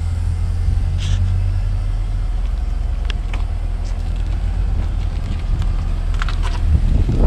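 A car engine running steadily at idle, a low rumble, with a few faint clicks over it.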